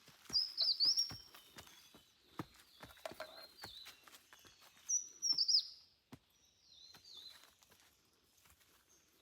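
Wild songbirds calling in high chirping phrases with quick falling notes, loudest about half a second in and again about five seconds in, over the short, irregular knocks of footsteps on a trail.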